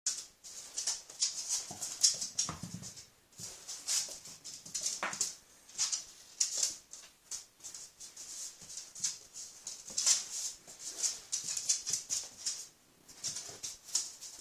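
French bulldog making short, repeated noises over and over while it plays with tennis balls.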